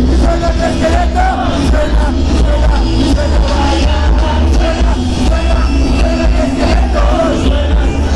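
Live rock band playing loud, with a singer's voice over heavy bass.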